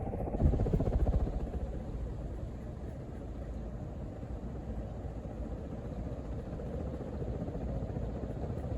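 1980 Casablanca Victorian ceiling fan running on high speed: a steady motor hum with the whoosh of the blades, a little louder in the first second or so. The flywheel rubs lightly on the motor housing.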